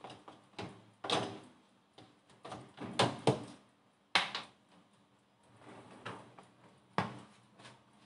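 Wire dish baskets of a Maximus MAX-002J tabletop dishwasher being slid in and out on their rails, rattling and clacking in several separate bursts. The loudest cluster comes about three seconds in, with sharp knocks at about four and seven seconds.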